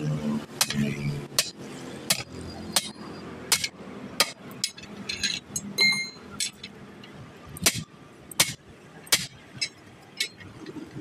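Hammer blows ringing on steel at a truck wheel's rim and tyre iron, struck about once every three-quarters of a second as the tyre is worked off the rim. One blow, about six seconds in, leaves a clear ringing tone.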